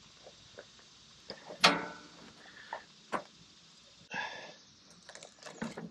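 Intermittent metal knocks, clicks and rattles from handling a band saw blade at the Wood-Mizer LT15 Wide sawmill's blade-wheel housing. One sharp ringing clank about a second and a half in is the loudest. A short rattle follows a little after the middle, then a few light clicks near the end.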